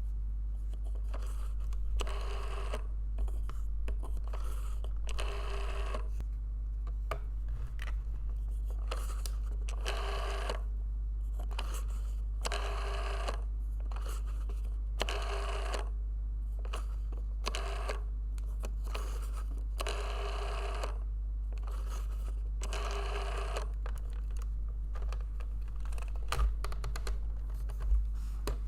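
Rotary telephone dial being turned and released again and again, each release a short whirring, clicking return of about a second, at uneven gaps as a number is dialled. A steady low hum runs underneath.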